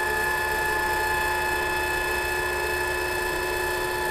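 A small electric motor running with a steady, even whine that holds one pitch throughout.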